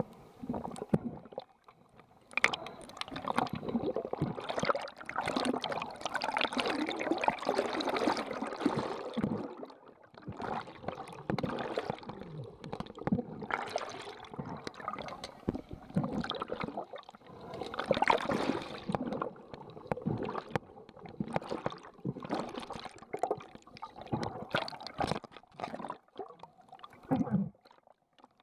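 Muffled water noise from a submerged camera: bubbling, sloshing and splashing that comes and goes in irregular stretches, broken by a few brief quiet gaps.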